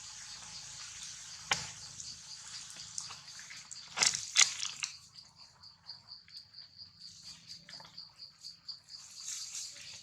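Outdoor ambience: insects keep up a steady, high, pulsing chirr, with scattered small clicks and rustles. Two sharp, loud cracks come about four seconds in.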